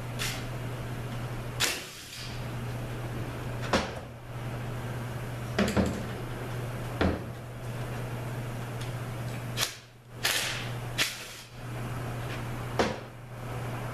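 Clunks and knocks of a Ford A4LD automatic transmission case and its parts being handled and turned on a workbench: about nine separate knocks, with a longer scrape around ten seconds in, over a steady low hum.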